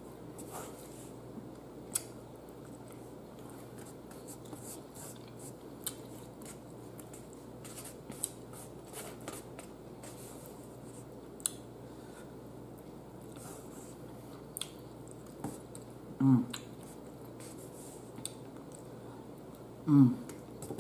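Close-up eating sounds: chewing and mouth noises with sharp clicks and scrapes of a metal fork against a plate. Two short hums of 'mm' near the end.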